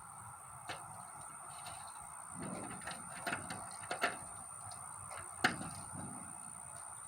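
Scattered light clicks and knocks from greenhouse frame parts being handled, the sharpest about five and a half seconds in, over a steady hiss and a faint high whine.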